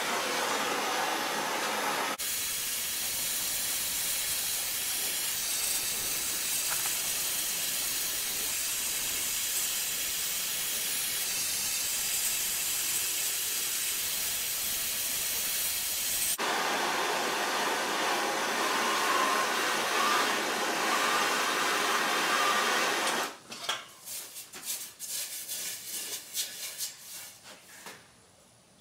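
Handheld gas torch hissing steadily as it heats a small steel stamp for hardening; the hiss changes about two seconds in and again a little past halfway, then cuts off. A few seconds of quieter, irregular crackling and clicking follow near the end.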